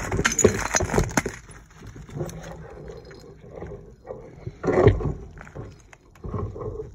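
Dry brush rustling and snapping with glass bottles and debris clattering as a gloved hand rummages through a dump pile and lifts out an old glass bottle. The loudest clatter comes in the first second, with another about five seconds in.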